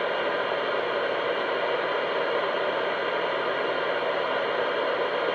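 CB radio static: a steady, even hiss through the radio's speaker between transmissions.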